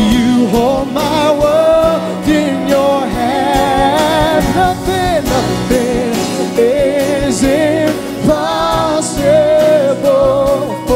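Live church worship music: a singer holding long, wavering notes over a band with steady bass and regular drum beats.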